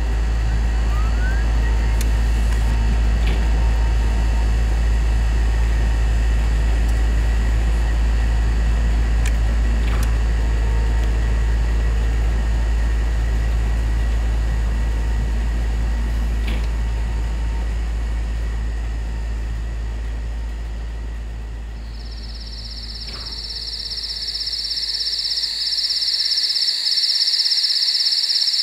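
A deep, steady rumble like the drone of city traffic, with a faint hiss and a few faint clicks. The rumble fades away over the last several seconds, and a steady, high-pitched shrill sound comes in about two-thirds of the way through and holds.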